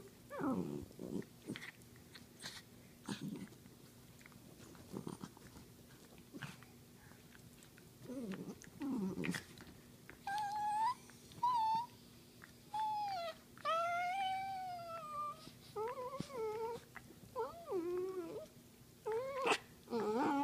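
Two dachshunds play-fighting: low play-growls, then a series of high, bending whining cries through the second half, with short clicks of mouthing and snapping jaws in between.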